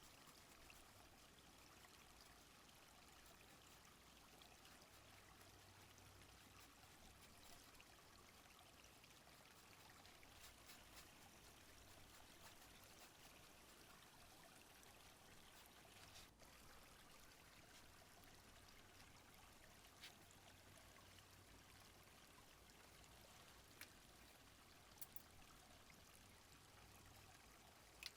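Faint flowing-stream ambience, a steady rushing of water, with a few faint clicks in the second half.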